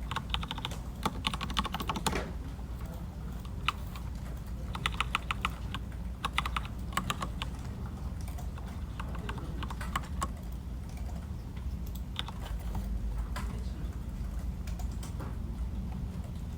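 Typing on a computer keyboard: runs of rapid key clicks with pauses between them, growing sparser in the second half, over a steady low hum.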